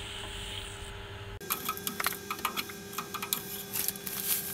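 Crushed malt pouring from a jug into the mash basket with a steady hiss. The hiss cuts off abruptly about a second and a half in, and a run of quick, irregular light clicks and taps follows.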